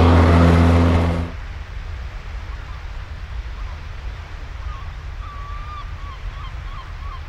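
A lawn mower running with a steady hum cuts off about a second in. It gives way to a quieter steady rushing background, with a series of short wavering bird calls from about five seconds in.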